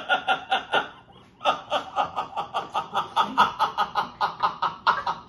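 A woman laughing hard in a fast run of short bursts, about five a second. The laugh breaks off briefly about a second in, then starts again and carries on.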